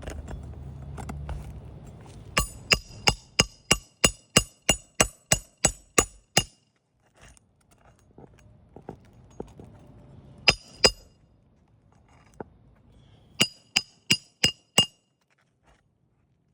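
Hammer driving roofing nails to fasten a replacement asphalt shingle: sharp ringing metal strikes, a quick run of about a dozen at some three a second, then two more, then a final run of five.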